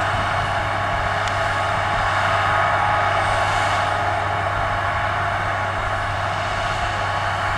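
Steady drone of a tractor engine working a row crop sprayer, with an even hiss over it.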